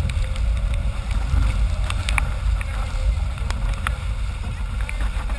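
Wind buffeting the GoPro's microphone in a heavy low rumble, with water rushing along the hull of a Formula 18 catamaran sailing fast. Scattered sharp ticks of water drops hit the camera housing.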